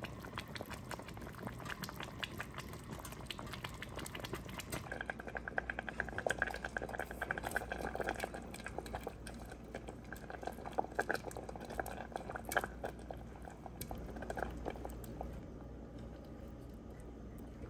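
A pot of Korean seaweed soup (miyeokguk) cooking with oats, bubbling at the boil: a dense crackle of popping bubbles that grows louder about five seconds in and eases off near the end.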